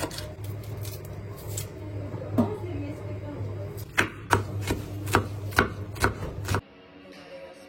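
Knife chopping on a cutting board in runs of sharp strokes, over a steady low hum. About a second before the end the sound cuts off to a much quieter background.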